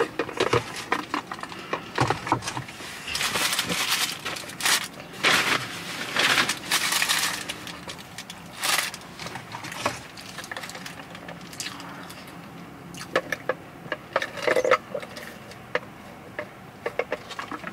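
Crinkling and crumpling of a paper sandwich wrapper being handled, in irregular bursts, with a sip through a plastic straw from a fountain-drink cup near the end.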